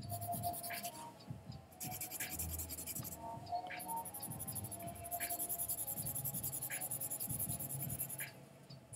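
Colored pencil scratching across paper in rapid back-and-forth strokes, laying down a solid base coat. The strokes stop briefly about a second in and again around three seconds, then run on unbroken until just before the end.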